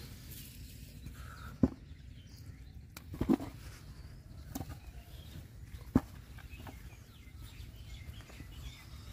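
Sharp hollow knocks of a plastic bucket being set down on dry mud and big caught fish being dropped into it: four or five knocks, the loudest about one and a half seconds and six seconds in, with a quick cluster around three seconds.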